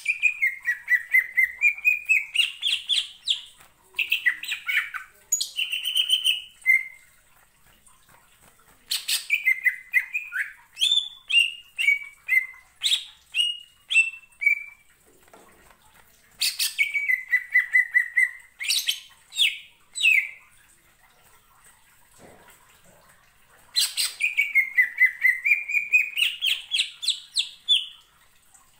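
Greater green leafbird (cucak ijo) singing its fast 'ngentrok' song: bouts of rapid, repeated chattering notes, several a second, with short pauses between bouts. Four bouts in all, one of them a run of notes that step down in pitch.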